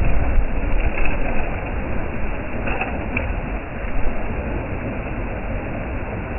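Strong wind buffeting the microphone: a steady rushing rumble, heaviest in the low end, that swells and eases with the gusts.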